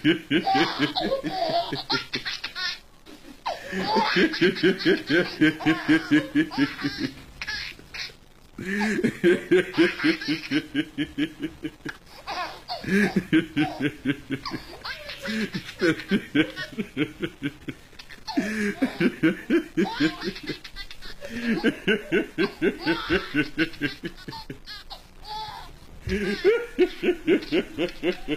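Hearty laughing over a Skype video call, in long runs of rapid, high-pitched 'ha-ha' pulses a few seconds each, with short breaks between.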